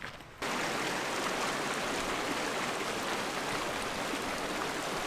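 Shallow rocky mountain stream running over stones: a steady rush of water that cuts in sharply about half a second in.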